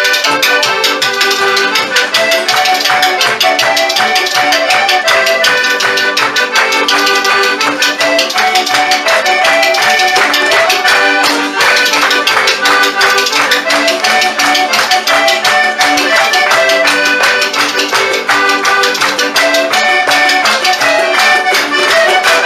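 A pair of spoons clattering in a fast, steady rhythm, played along with a polka melody.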